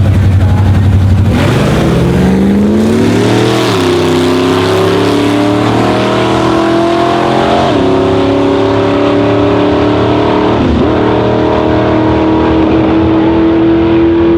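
Supercharged Ford Lightning drag truck's V8 launching hard about a second in and accelerating at full throttle down the strip. The revs climb and drop sharply at three upshifts, about 4, 8 and 11 seconds in.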